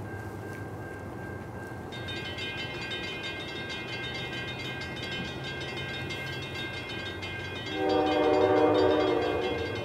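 Air horn of an approaching Amtrak B32-8WH diesel locomotive, sounding one chord of several notes for about two seconds near the end. A steady high ringing starts about two seconds in and keeps going underneath the horn.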